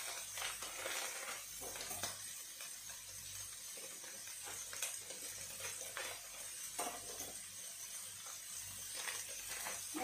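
Chopped onion and garlic frying in oil in a wok, a steady sizzle, with a few short clicks and rustles from a plastic packet being handled.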